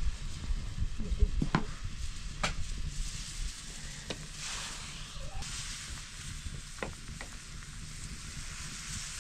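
Millet-flour dhido being stirred in a pot of boiling water, with a steady hiss and a few sharp knocks scattered through.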